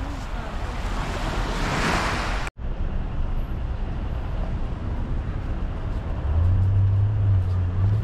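Surf washing in on the beach, swelling to a peak, then a sudden break. Outdoor traffic rumble follows, and a vehicle engine's low steady drone comes in near the end.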